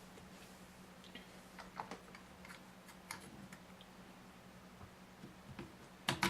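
Faint scattered clicks and taps of the plastic parts of a Tippmann X7 Phenom paintball marker being handled as the push pins are fitted, with two sharper clicks close together near the end.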